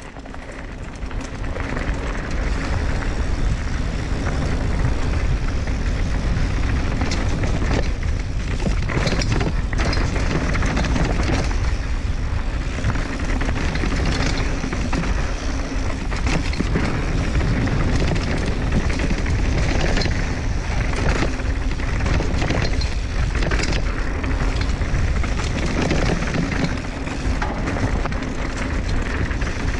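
Mountain bike ridden along a dirt singletrack: wind rushing over the camera microphone and tyres rolling on dirt, with scattered knocks and rattles of the bike over bumps. It builds over the first few seconds as the bike picks up speed, then stays loud and steady.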